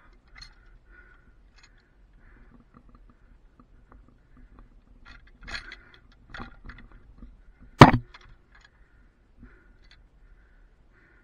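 Scattered metal clicks and knocks as a cable lasher on an aerial strand is handled, with one sharp, loud clank near the end of the middle.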